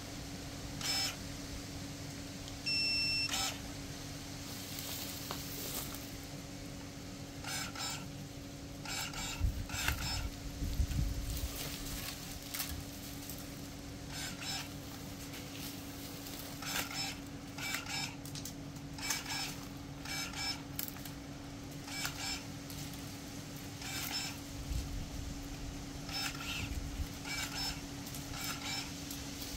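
KEBTEK KTE-35 cordless brushless pruning shears making cut after cut through small branches, each cut a brief whir of the motor as the blade closes, many in quick succession. A short electronic beep sounds about three seconds in.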